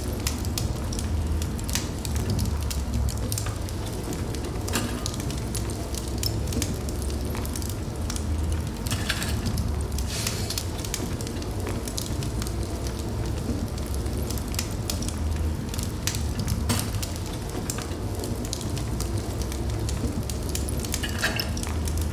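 Wood fire burning in a fireplace: a steady low rumble of flames with frequent irregular crackles and pops.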